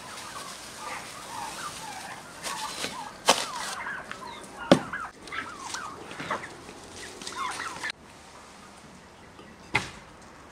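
Domestic fowl clucking and calling in many short wavering calls, with a few sharp knocks; the calls cut off abruptly about eight seconds in.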